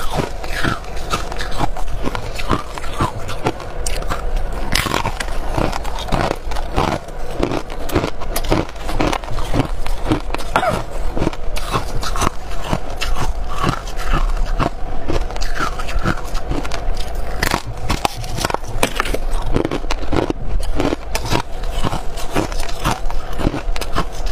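A person biting and chewing hard ice and freezer frost: a continuous run of crisp, irregular crunches, several a second.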